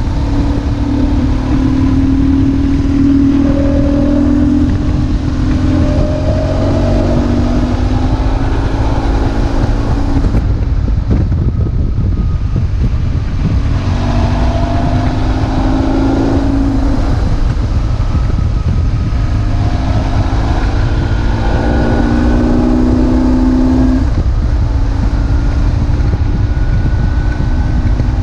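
BMW R1150GS boxer-twin engine under way, its note rising in pitch several times as it accelerates, falling away in between, under a heavy rumble of wind on the microphone.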